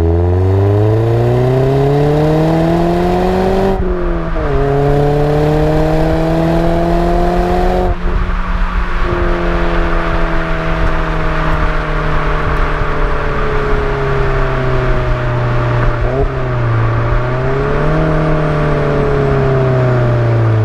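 Alfa Romeo Giulietta Quadrifoglio Verde's turbocharged 1750 TBi four-cylinder, breathing through a Supersprint exhaust, heard from inside the cabin as the car pulls through the gears. The revs rise steadily, drop at a gear change about four seconds in, and rise again until a second change near eight seconds. They then settle into a steady, slowly falling drone, with a brief dip and pick-up around sixteen seconds.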